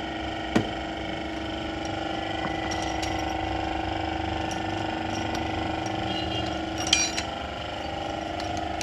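Metal hand tools clinking against a Honda Civic engine: one sharp clink about half a second in and a short run of ringing clinks near the end, over a steady machine hum.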